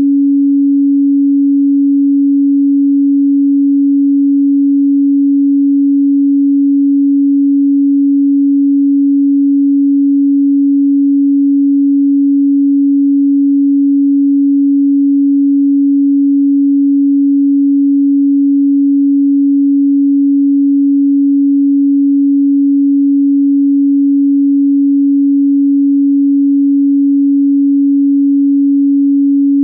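A pure 280 Hz sine-wave test tone, one steady unchanging pitch held at a constant level.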